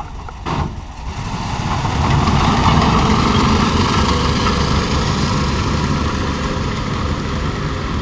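Engine of a WWII Steyr RSO tracked tractor pulling away: it swells over the first two seconds and then runs steadily as the vehicle drives off, easing slightly near the end.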